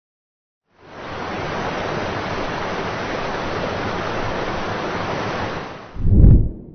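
A steady, even rushing noise, like surf or falling water, for about five seconds, stopping abruptly; then a short, loud, low thump near the end.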